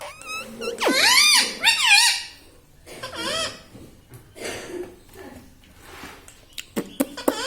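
Indian ringneck parrot chattering in high, warbling calls that bend up and down in pitch, loudest about a second in, followed by a few sharp clicks near the end.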